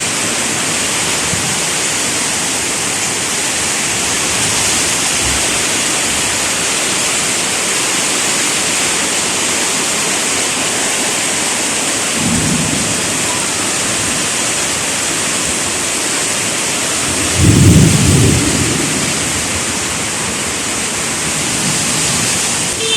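Heavy tropical rain falling steadily with a loud, even hiss. Two short low rumbles break through it, one about halfway through and a louder one a few seconds later.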